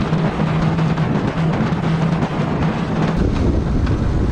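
A 1979 Suzuki GS750's inline-four engine holds a steady note while riding, under heavy wind noise on the microphone. About three seconds in the engine note drops away and a deeper wind rumble takes over.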